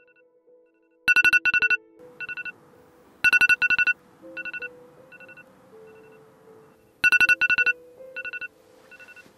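A mobile phone ringtone: a bright two-pitch electronic chime sounding in quick clusters of pulses, the pattern repeating about every six seconds with fainter echoing repeats between, over soft sustained background music.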